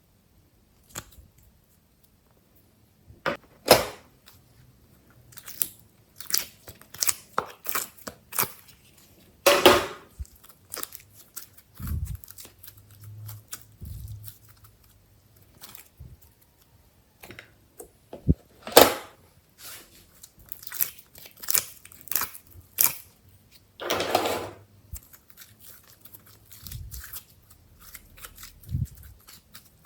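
Glossy slime being squished and worked by hand, giving irregular sticky clicks, crackles and air-bubble pops, with a few soft low thuds.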